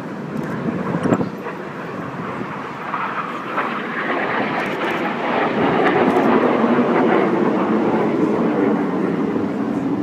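A formation of display aircraft trailing smoke flies past. The steady, noisy sound of their engines swells to its loudest about six seconds in and stays loud. A short knock comes about a second in.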